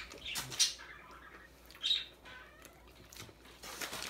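People eating chicken nuggets: a few short bursts of chewing, mouth and handling noises, the clearest about half a second in and near two seconds.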